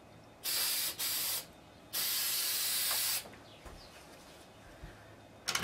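Aerosol spray-paint can spraying in three bursts of steady hiss: two short ones about half a second each, then a longer one of about a second and a quarter.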